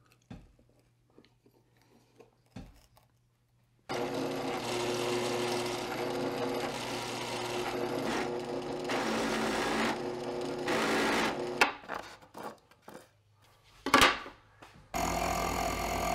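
A few faint taps, then a bench drill press starts about four seconds in and runs steadily while boring through plywood until nearly twelve seconds. Scattered knocks and one sharp click follow, and about a second before the end a small benchtop metal lathe's motor starts running.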